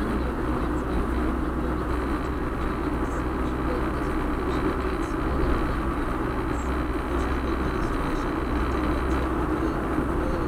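Steady road and engine noise heard inside a moving car's cabin, an even low rumble and tyre hum with no change in speed.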